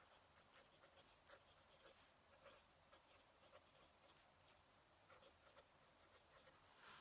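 Faint scratching of a fountain pen nib on paper in short, irregular strokes.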